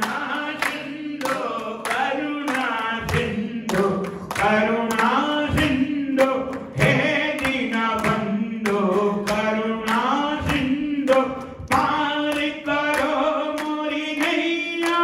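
A group singing a Hindu devotional bhajan, a slow chant-like melody over a steady held note. Sharp claps keep time about two to three times a second.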